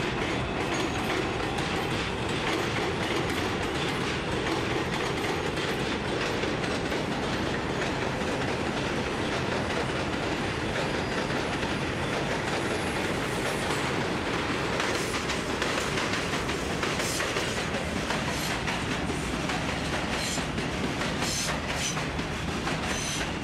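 R142/R142A subway trains running on the tracks, a steady rumble with wheels clacking over rail joints and scattered sharp clicks in the second half.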